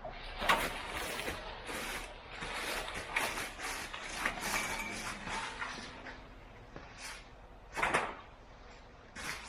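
Rattling, scraping and knocking as the light homemade firewood conveyor is pushed and dragged into a new spot, in a busy run of clatter for the first several seconds, then one louder knock near the end and a short one after it.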